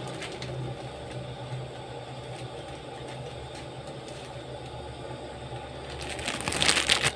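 Steady low rumble and hiss of a pot of coconut-milk chicken soup cooking on the stove. Near the end a metal ladle dips into the pot with a brief scraping clatter.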